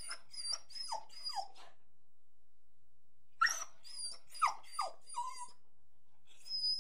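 Dog barking in quick bursts of short calls, each falling in pitch: about four near the start, about six more a few seconds in, and a single call near the end.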